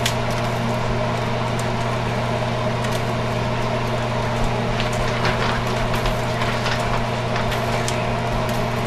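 A steady machine hum, like a motor or fan running, with scattered light clicks and cracks on top, more of them in the second half.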